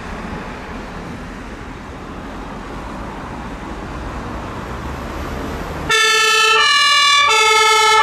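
Road traffic running, then about six seconds in the fire service Volkswagen van's two-tone siren (German Martinhorn) starts loud, stepping between a high and a low note about every two-thirds of a second.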